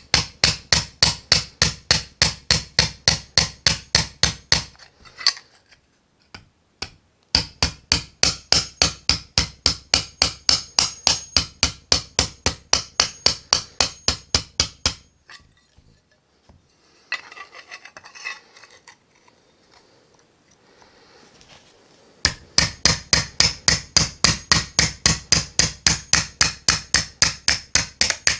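Claw hammer tapping a sheet-metal panel over the edge of a small bench anvil, bending its tabs 90 degrees. Three runs of rapid, even blows, about four a second, with a pause of scraping and handling in the middle.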